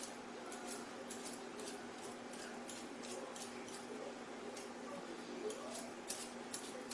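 Small kitchen knife peeling a potato: short scraping strokes of the blade against the skin, about three a second, a few louder ones near the end, over a steady low hum.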